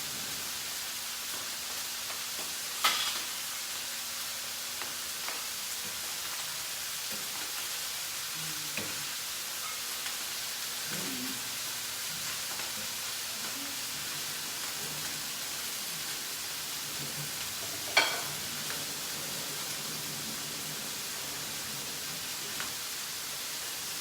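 Mushrooms and pasta sizzling in a frying pan, a steady hiss, with a utensil knocking sharply against the pan twice.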